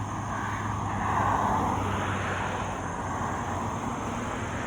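Road traffic: a vehicle goes past, swelling about a second in and fading, over a steady low hum.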